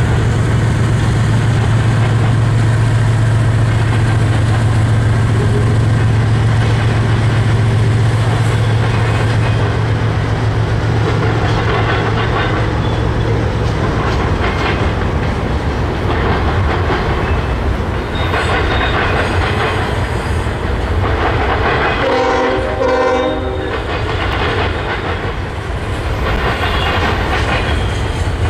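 CSX double-stack intermodal freight train passing. For about the first half the diesel locomotives run with a steady low drone; after that come the rolling rumble and wheel clicks of the loaded stack cars. A short horn blast sounds about two-thirds of the way through.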